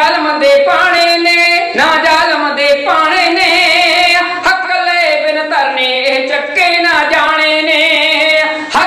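Punjabi kavishari sung by men's voices without instruments, in high, drawn-out notes that waver.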